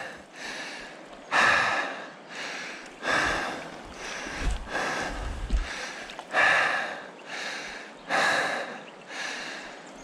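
A man breathing hard from exertion: one loud breath about every one and a half to two seconds.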